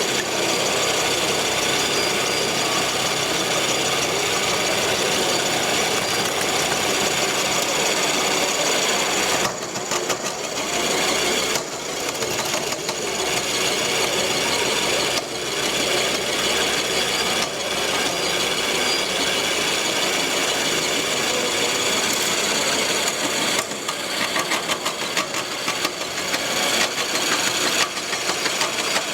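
Diesel-engine sound of radio-controlled model trucks working on a construction-site course, running steadily with a few short dips, and more uneven toward the end.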